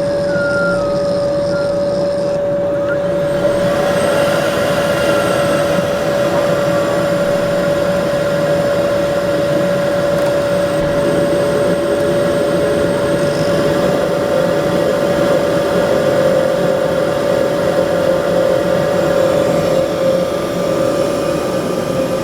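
Domestic condensing boiler running: a steady rushing from the combustion fan and burner, with a constant mid-pitched tone. The sound grows a little louder and fuller about three seconds in.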